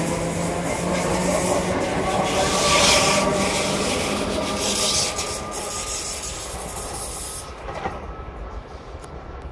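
Two coupled Class 365 electric multiple units accelerating out of the station past the platform. There is a faint traction-motor whine and steady wheel-on-rail noise as the carriages go by. The sound fades after about five seconds as the train draws away.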